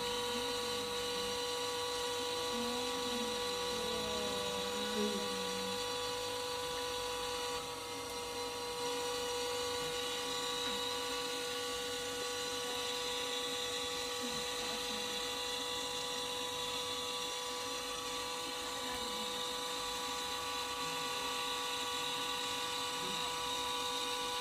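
Potter's wheel motor running at a constant speed, giving a steady whine made of several pitches while the clay is thrown into a cylinder.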